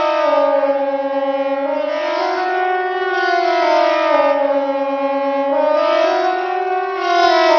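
KTG9 civil-defence siren sounding the Swiss General Alarm signal: a loud two-toned wail that slowly rises and falls in pitch, over and over.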